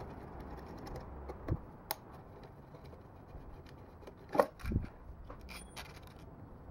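Small metal clicks, knocks and scrapes as a muffler is worked loose and lifted off a small two-stroke blower engine by hand. There are a few scattered clicks, loudest in a short cluster of knocks about four and a half seconds in.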